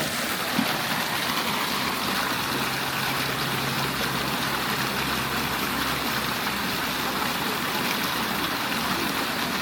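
Hot spring water flowing out of the ground in a steady, even rush. A faint low hum sits under it from about two seconds in until near the end.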